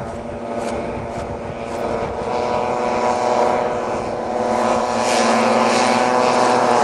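Vintage racing snowmobiles' two-stroke engines running hard as the sleds pass, getting louder as they close in.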